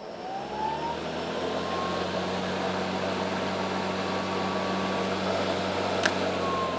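Greenworks Pro 80V brushless electric lawn mower running free with no grass to cut: the blade motor winds up with a rising whine, runs steadily with a low hum and the rush of the spinning blade, and starts to wind down at the very end as the bail is let go. A single sharp click about six seconds in. Pretty quiet for a lawnmower.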